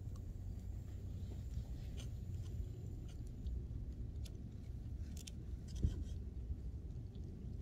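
A person chewing a mouthful of chow mein and chicken teriyaki, with a few small clicks and a soft knock about six seconds in, over a steady low rumble.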